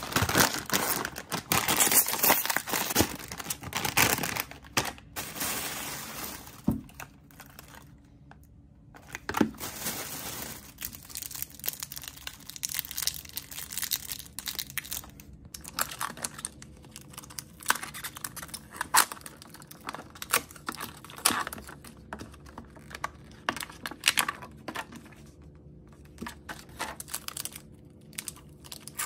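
Plastic snack wrappers and packaging crinkling and rustling as they are handled, densest for the first six seconds or so, then in scattered small crackles and clicks.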